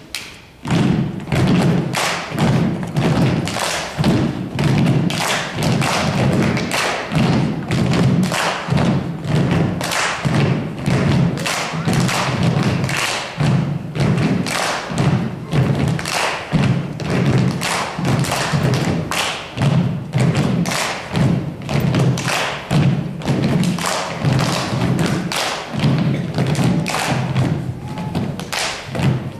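A steady rhythmic beat of heavy thumps, about two a second, with music. It fits a group of dancers stamping in time on a wooden stage.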